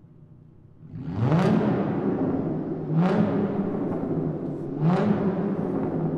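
Car engine revved three times in a parking garage, each blip a quick rise in pitch about two seconds apart, after a quiet idle for the first second.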